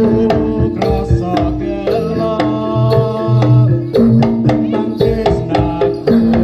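Live Javanese jaranan gamelan music: hand-beaten kendang drums with a melody of struck pitched notes moving in steps over held low tones.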